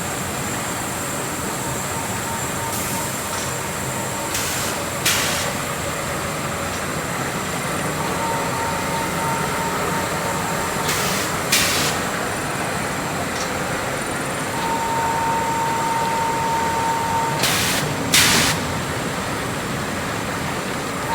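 Cooling pad production line machinery running steadily, a continuous mechanical noise with several short hissing bursts and a faint intermittent whine.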